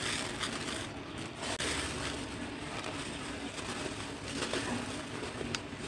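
Dry cement chunks crushed and crumbled by hand in a bowl of cement powder: a continuous gritty crunching and rustling as powder and grit pour down, with a sharp click near the end.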